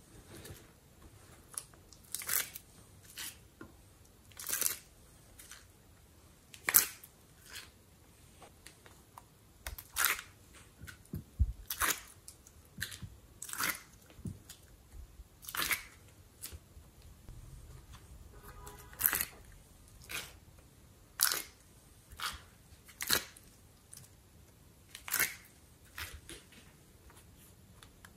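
Thin plastic heart-shaped moulds crackling and clicking as fingers squeeze and flex them to pop slime out, a sharp crinkle every second or two.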